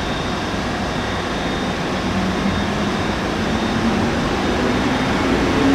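ÖBB Railjet electric trains: a steady running rumble with an electric whine that rises slowly in pitch, growing louder toward the end as the train approaches the platform.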